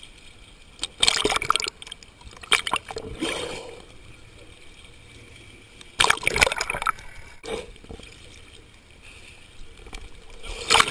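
Choppy sea water splashing and sloshing at the surface against a waterproof camera housing in irregular bursts. The loudest comes about six seconds in, as a wave washes over the lens.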